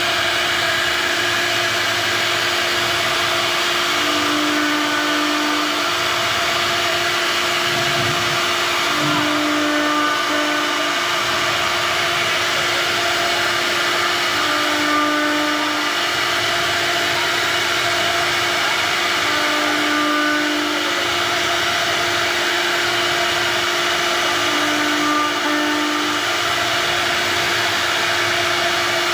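CNC router spindle running as its bit carves a relief pattern into a wooden board: a steady high motor whine over cutting noise. A lower hum swells in for a second or so about every five seconds.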